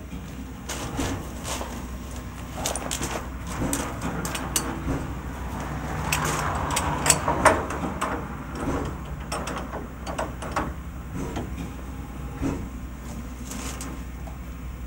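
Metal clanks and clicks of a steam locomotive's brake-hose and heating-hose couplings being handled and joined to the train, with a rushing noise about six seconds in and a steady low hum underneath.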